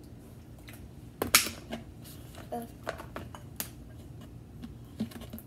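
Sharp plastic clicks and knocks from a liquid-starch jug, plastic bowls and a stirring spoon on a plastic tray while slime activator is poured and stirred. About seven scattered clicks, the loudest a little over a second in.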